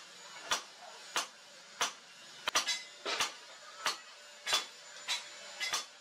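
Hammer blows forging a red-hot steel machete blade on an anvil, about one and a half sharp metallic strikes a second, with a quick double strike about two and a half seconds in.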